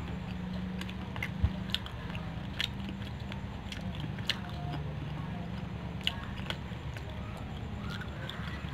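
A person chewing fried chicken with the mouth closed: scattered short mouth clicks over a low steady hum.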